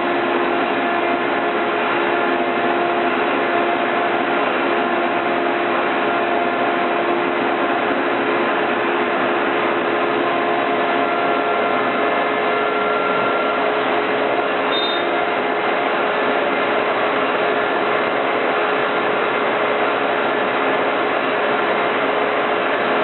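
CNC router spindle with a 1/4-inch bit cutting MDF: a loud, steady cutting noise with a few steady whining tones over it.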